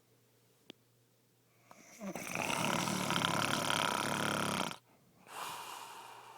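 A sleeping man snoring: after a quiet start, one long loud fluttering snore about two seconds in that cuts off sharply, followed by a softer breath that fades away.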